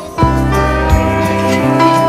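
Background music: a slow instrumental with held notes over a stepping bass line, coming back in strongly just after the start.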